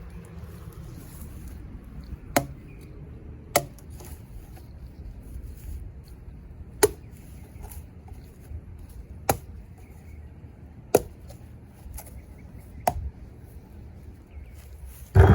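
Blade chopping into a dead papaya tree: about six sharp single strikes at uneven gaps of one to three seconds, then a louder, heavier thud at the very end.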